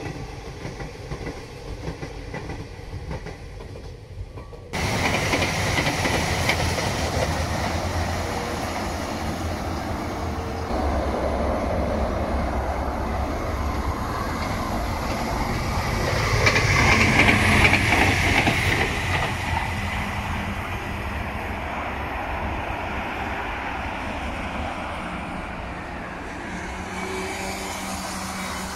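Madrid Metro series 6000 electric trains running past on the rails with wheel clatter, mixed with motorway traffic. The sound jumps suddenly louder about five seconds in, and a high whine peaks a little past the middle.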